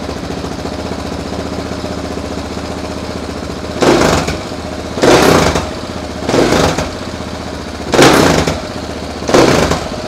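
KTM 690 Enduro R's single-cylinder engine idling through a newly fitted Wings aftermarket exhaust, then blipped five times from about four seconds in, each rev rising and dropping quickly back to idle.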